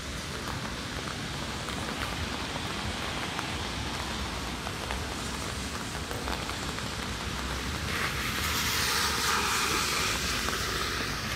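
Steady rain falling on a city street, an even hiss with scattered faint drop ticks. About eight seconds in, a louder, brighter rushing hiss swells up for a few seconds and then eases off.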